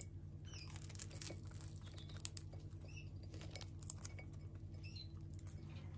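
A parrot nibbling apple pieces on a plate, making faint scattered clicks and taps with its beak, with a few short, faint high squeaks. A steady low hum runs underneath.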